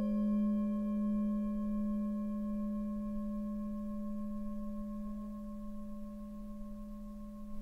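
Meditation music: a struck Tibetan singing bowl ringing with a strong low hum and several fainter higher overtones, slowly dying away.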